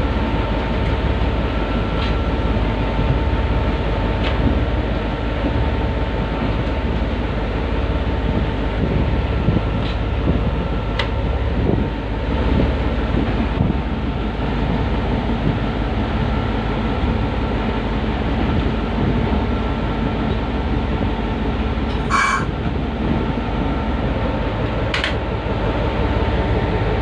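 Steady low rumble of a Pakistan Railways diesel locomotive heard from inside its cab, with scattered clicks and knocks. A short, sharp high-pitched noise comes near the end.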